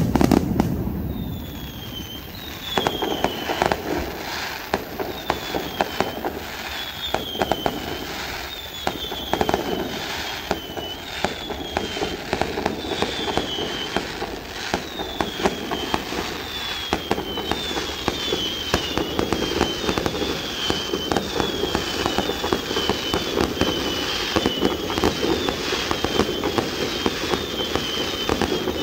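Fireworks display: a dense run of bangs and crackling from bursting shells and fountains, with a big bang right at the start. A high, falling whistle repeats about once a second over the bangs.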